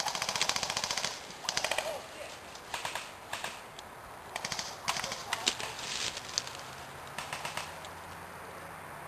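Airsoft electric guns firing full-auto in about eight short bursts of rapid clicking. The first and loudest burst runs about a second, and the rest last a fraction of a second each.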